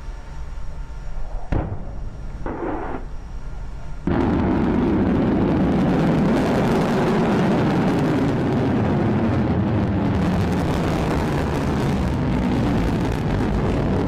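Rocket engine exhaust noise from a sea-launched rocket climbing after lift-off. A low rumble with a sharp pop and a short burst in the first few seconds; then, about four seconds in, the sound steps up abruptly to a loud, steady noise that holds.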